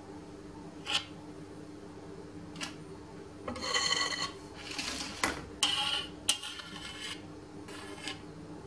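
Metal offset spatula scraping across the mousse and against the rim of a metal springform pan as the top layer is smoothed level. It comes as a string of short scrapes and rubs, thickest in the middle, with the longest one about three and a half seconds in.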